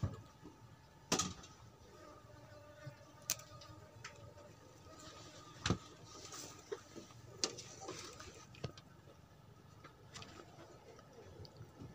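Faint steady background with a few short, sharp knocks and clicks spread through it, the strongest about a second in and near the middle.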